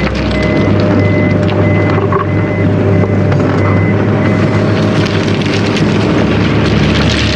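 Excavator diesel engine and hydraulics running loud under load as the machine swings a full bucket of crushed stone. A warning beeper sounds about twice a second for the first four and a half seconds, then stops.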